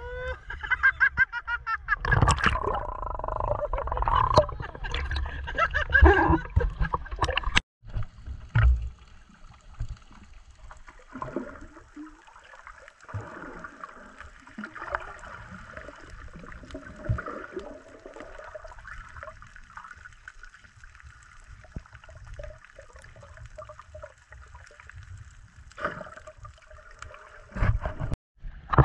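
Water sloshing and splashing right at the microphone of an action camera held at the surface. About a third of the way in it cuts to the muffled gurgling and faint crackling heard with the camera under water.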